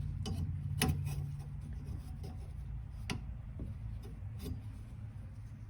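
A few sharp clicks and taps of small calipers being handled and closed on a pipe. The clearest come about a second in and about three seconds in, over a low steady hum.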